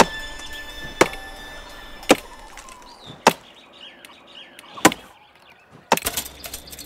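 A series of sharp knocks, six single strikes about a second or more apart and then a quick flurry of clicks near the end, with birds chirping faintly in between.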